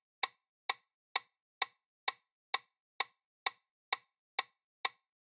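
Ticking sound effect of a quiz countdown timer: short, sharp, clock-like ticks a little over two a second, evenly spaced, with silence between them.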